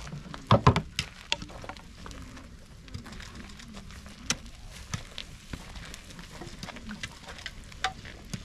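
Irregular clicks and knocks, with a few loud thumps close together about half a second in.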